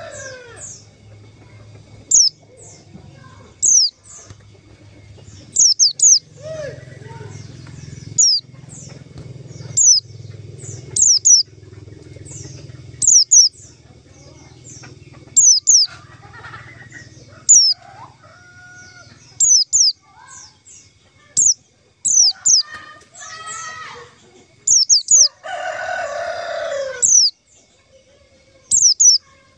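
White-eye (pleci) lure calls: sharp, high chirps that fall quickly in pitch, often in pairs, repeated every second or two. A rooster crows loudly in the background about 26 seconds in.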